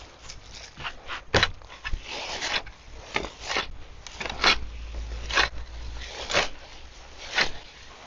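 A compost turning tool being plunged and worked through compost in a plastic compost bin, scraping and rustling in short strokes about once a second.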